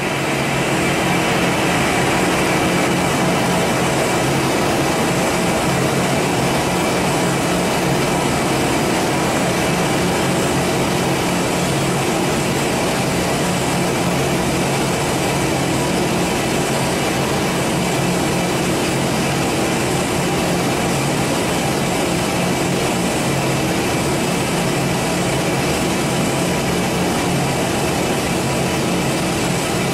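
Giddings & Lewis 84 CNC vertical turning lathe running with its bare table turning and no cutting. It makes a steady, even mechanical drone with a low hum underneath and does not change.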